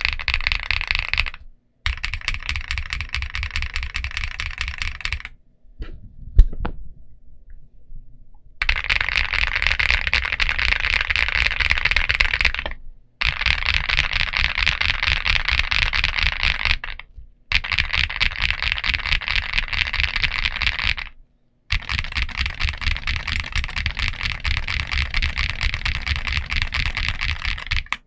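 Rapid typing on an INKC65 mechanical keyboard fitted with CIY Asura switches and Domikey Productivity keycaps: a dense clatter of keystrokes in several runs that stop and start abruptly. In a quieter stretch about six to eight seconds in there is a single sharp click.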